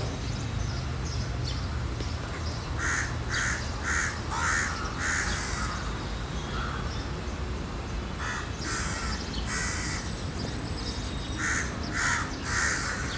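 Crows cawing in quick runs of several harsh calls, three runs in all, over steady outdoor background noise.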